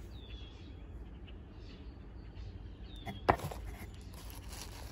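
Phone microphone handling noise, the phone shifting against clothing over a low rumble, with one sharp knock about two-thirds of the way through and a few faint high chirps.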